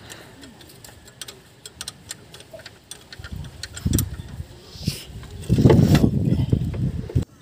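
Scattered metallic clicks and taps of hand tools working at an engine's alternator bracket, with bursts of loud low rumbling about three seconds in and again, louder, from about five and a half seconds until just before the end.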